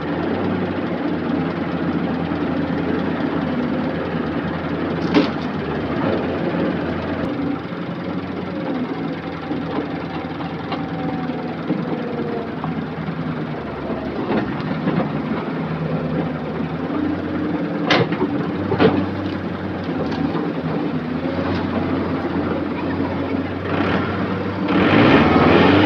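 Diesel excavator engine running steadily close by, with a few sharp knocks over it. The engine gets louder near the end.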